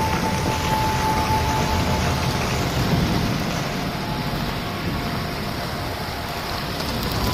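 Steady rush of wind-like noise with a deep rumble underneath: a sound-design dust-storm effect.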